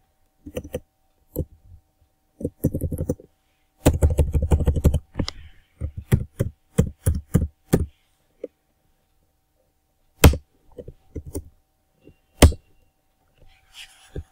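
Computer keyboard typing: bursts of rapid keystrokes, then two single louder keystrokes about two seconds apart.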